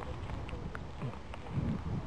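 Footsteps on wet, muddy ground, a soft thud about every half second to second, with wind rumbling on the microphone and a few light clicks.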